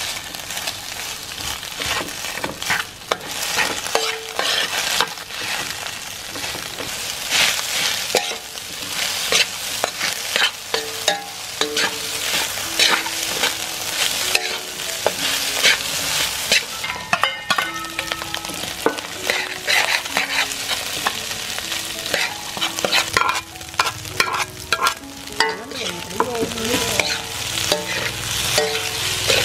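Metal spatula scraping and clinking against a metal wok as rice and scrambled egg are stir-fried, over a steady sizzle of frying. The scrapes and taps come again and again throughout.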